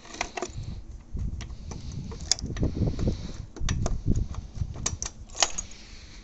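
Scattered sharp clicks and a key rattle as the ignition key is turned and dashboard switches are worked on a Honda Gold Wing 1500, with irregular low thumps of handling noise; the engine is not yet running.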